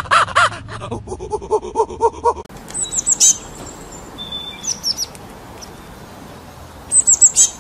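A monkey giving a rapid run of short pulsed calls, which stops abruptly about two and a half seconds in. Then a small bird's high, quick falling chirps in short bursts, the loudest burst near the end.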